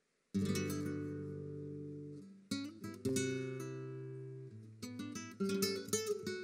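Flamenco guitar playing solo: a loud strummed chord breaks the silence about a third of a second in and rings out as it fades. It is followed by more chords and a quick flurry of strums near the end.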